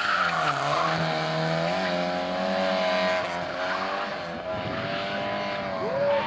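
Renault 5's engine revving hard through a cone slalom. The revs drop and climb again twice, and there is a brief tyre squeal at the start.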